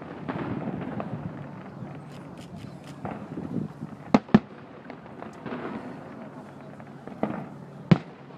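Aerial fireworks shells bursting in the distance: four sharp bangs, two in quick succession about four seconds in and two more near the end, with faint crackling about two seconds in.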